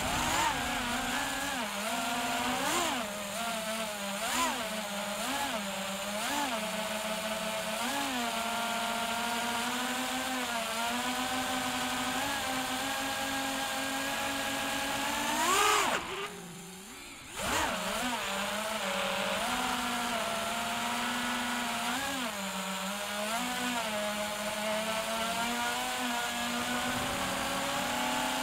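FPV quadcopter's brushless motors whining, the pitch rising and falling with each throttle blip as the drone manoeuvres. A little past halfway the whine climbs sharply, then drops away for about a second and a half on a throttle cut before picking back up.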